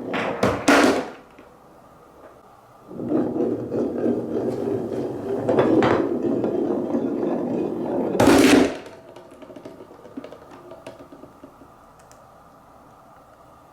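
Marbles on a wooden marble run: a few sharp clacks, then a ball rolling along a wooden rail with a steady rumble for about five seconds. It ends in one loud knock, followed by a few light ticks as it settles.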